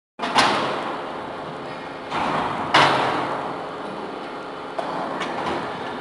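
Scrap metal clanging against the steel charging box of a hydraulic metal baler: two loud clangs about two and a half seconds apart, each ringing on, with a smaller knock near the end, over steady background noise.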